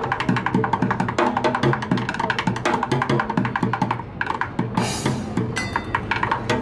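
Fast drumming with sticks on an improvised street kit of a plastic water-cooler jug, stacked metal pots, a tall drum and plastic buckets, in rapid strokes. A few bright, ringing metallic hits stand out about five seconds in.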